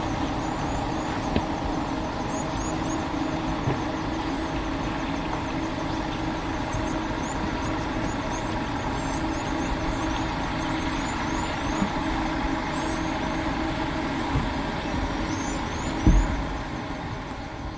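A vehicle engine idling with a steady, even hum, and faint high chirps of small birds above it. A single low thump comes near the end.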